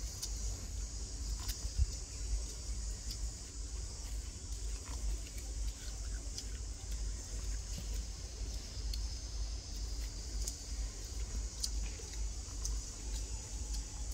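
Quiet outdoor ambience: a steady high hiss, a low rumble on the microphone, and a few faint scattered clicks.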